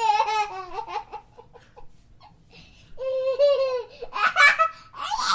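A young child laughing in high-pitched bursts: a quick run of giggles, a short lull, then a drawn-out laugh and more laughing near the end.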